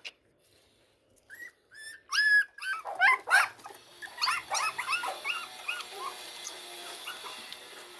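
Young puppies whimpering and squealing in high, short cries: a few at first, loudest around two to three seconds in, then a quick run of shorter squeaky cries as the litter crowds in to nurse.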